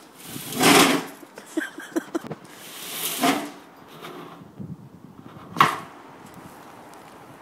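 A Christmas tree being pushed through a metal netting funnel: its branches and needles scrape and rustle against the funnel in two or three swells, with a few small clicks, then a single sharp knock about five and a half seconds in.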